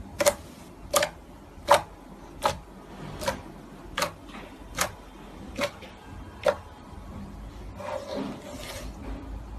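Hands working slime, making a sharp pop about every three-quarters of a second, nine in a row, then a longer, softer noisy squish near the end.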